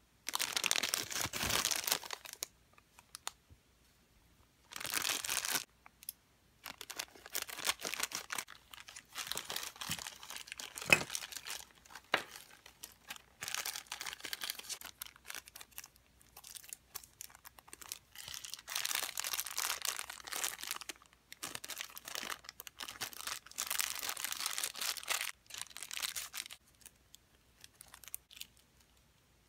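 Thin clear plastic bags crinkling and rustling in the hands as small plastic toy pieces are unwrapped, in bursts with short pauses between. A couple of sharp clicks about a third of the way in, the first being the loudest sound.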